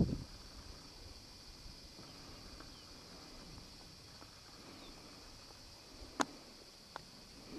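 Faint outdoor background noise with a steady high hiss. A brief low rumbling burst comes at the very start, and two sharp clicks follow about six and seven seconds in.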